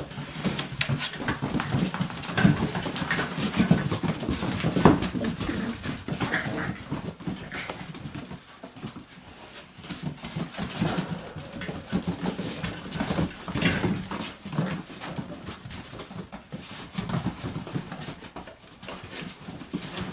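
A litter of border collie puppies whimpering, with many small clicks of paws and claws on a wooden floor, busiest in the first few seconds.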